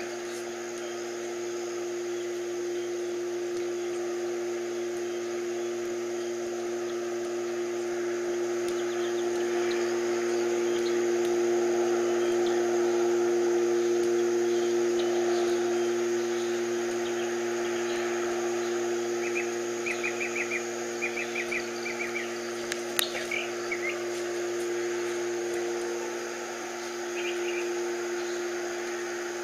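Unidentified steady humming drone made of several fixed tones, which swells slowly louder and then eases back down. A few short chirping trills come in over it in the second half.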